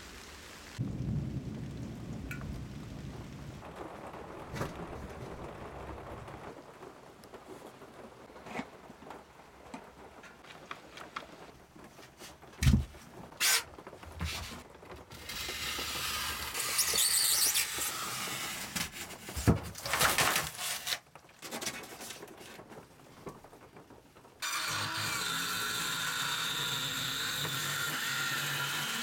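Rain pattering on leaves for the first moment, then knocks, rustles and scraping as a wooden window frame is handled against the wall, with two sharp knocks the loudest. About 25 seconds in, a Redverg 18 V cordless circular saw starts and runs steadily, cutting into the wall panelling.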